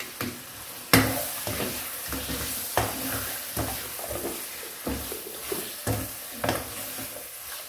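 Mutton and onions frying in a nonstick wok, sizzling steadily, while a spatula stirs and scrapes through the pieces. There is a sharp knock about a second in, then stirring strokes every half-second to second.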